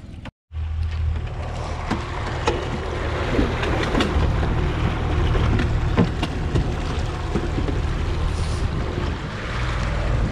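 Outboard motor running steadily as a small boat travels across the water, with the rush of water off the hull and wind on the microphone. It starts about half a second in.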